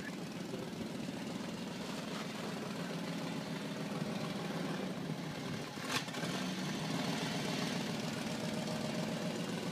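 An engine running steadily at low speed, with a single sharp click about six seconds in.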